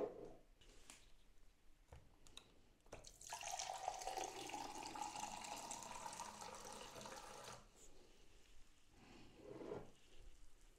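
Liquid running in a quiet stream for about four seconds, starting about three seconds in and then stopping.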